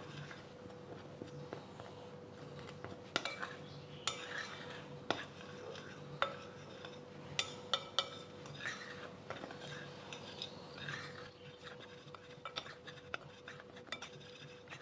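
Metal spoon stirring a dry flour-and-cornstarch mix in a glass bowl: soft scraping with irregular clinks of the spoon against the glass.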